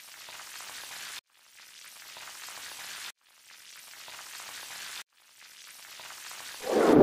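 Sizzling, fizzing sound effect repeated four times, each fizz swelling for about two seconds and cutting off sharply, followed near the end by a short, louder pop.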